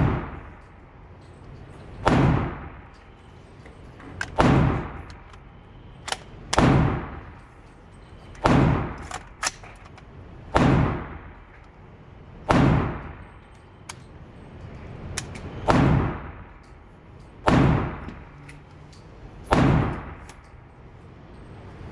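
AR-15 rifle fired in slow, steady single shots, about ten in all, roughly one every two seconds, each shot followed by a short echo: deliberate aimed fire while breaking in the rifle and zeroing its red dot.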